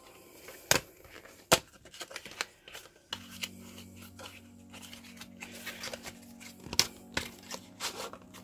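A small cardboard box of Ecoline Duo Tip brush pens being opened by hand: the card rustles and tears, with several sharp clicks as the flap is worked, and the plastic pens slide out near the end. A faint low steady hum comes in about three seconds in.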